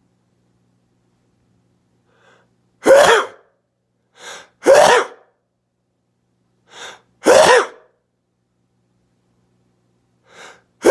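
A person sneezing again and again, set off by sniffed pepper. There are three loud sneezes a couple of seconds apart, each led by a quieter catch of breath. A fourth begins at the very end.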